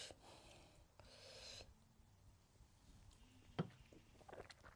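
Faint close-up eating sounds of a person eating dhindo: a soft hiss at the start and another about a second in, then a few small mouth clicks of chewing near the end.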